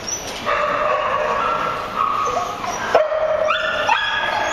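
Dog crying out in a run of drawn-out pitched yips, each held about half a second, with a couple rising in pitch about three and a half seconds in.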